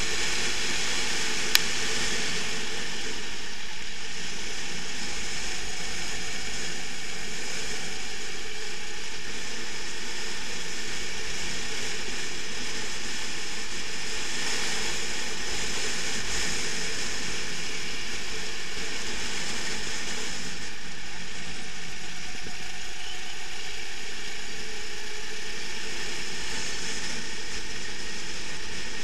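Go-kart engine running at racing speed, heard from on board the kart and mixed with wind noise on the camera's microphone: a steady, noisy drone. One sharp click comes about a second and a half in.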